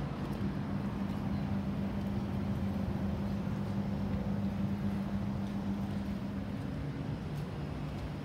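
Outdoor air-conditioning units, LG inverter condensers among them, running: a steady fan whoosh over a low compressor hum. The hum changes note about six and a half seconds in.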